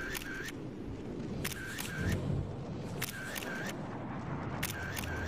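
Camera shutter clicking in quick bursts of about three clicks, a burst every second and a half or so, four times, over a low steady rumble.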